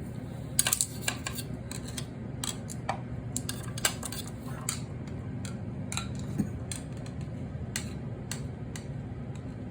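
Scattered light metallic clicks and clinks as a steel tool is touched to the permanent magnet and housing of a condenser fan motor, over a steady low hum.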